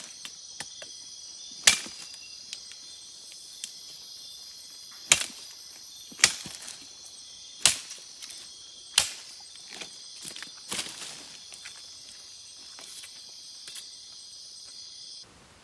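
Machete chopping a tree branch: about six loud sharp strikes at irregular intervals of one to two seconds, among lighter taps, over a steady high chirring of rainforest insects. The insect sound cuts off abruptly near the end.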